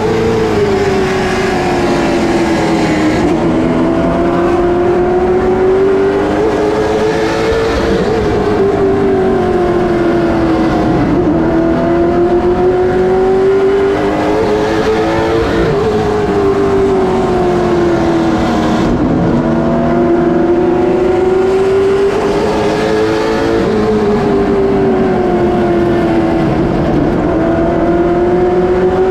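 NASCAR late model stock car's V8 engine at racing speed, heard from inside the cockpit. The revs fall and climb again about every eight seconds as the car lifts into each pair of turns and gets back on the throttle down the straights.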